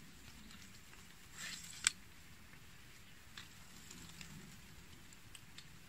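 Quiet outdoor background with a short rustle and one sharp click about two seconds in, then a few faint ticks.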